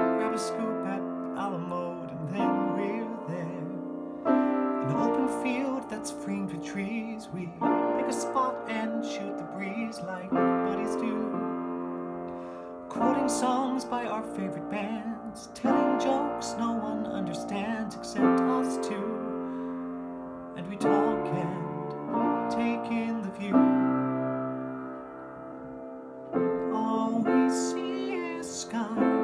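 Piano accompaniment of held chords that change every couple of seconds, with a man singing the melody over it in a baritone range.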